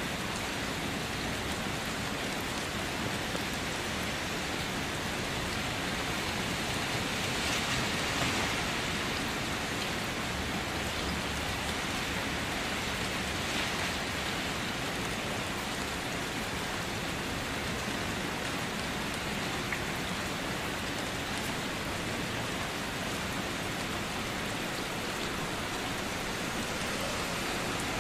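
Steady rain falling and spattering on surfaces, swelling a little for a moment about eight seconds in.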